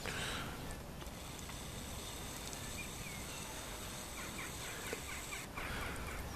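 Outdoor ambience: a steady low background hiss with a few quick bird chirps near the end.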